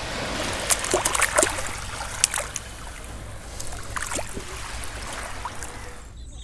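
A hand splashing and scraping in shallow water over wet sand while digging out a half-buried shellfish, with sharp splashes clustered about a second in and again around two and four seconds.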